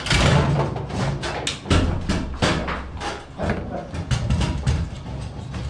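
Foosball in play: a quick, irregular run of sharp knocks as the ball is struck by the rod players and bangs against the table walls, with rods clacking.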